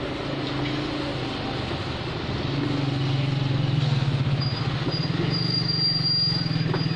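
A vehicle engine running steadily with an even low throb, growing louder about two and a half seconds in; a thin high whine joins about halfway through.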